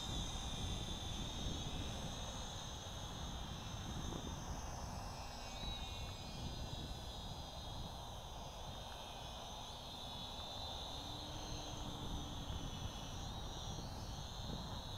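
RC model plane's motor and propeller whining high overhead, the pitch wavering and bending as it flies past and the throttle changes, over a low rumble of wind on the microphone.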